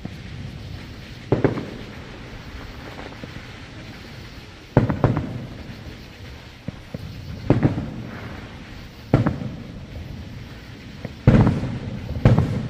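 Aerial firework shells bursting: about six booms a second or more apart, each trailing off in a rumbling echo. The last two, near the end, are the loudest.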